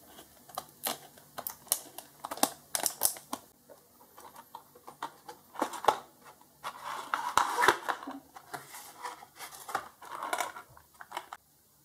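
Clear plastic blister packaging crinkling and crackling as hands pull it open and off its cardboard backing: a run of sharp crackles, with longer, denser crinkling about seven and ten seconds in.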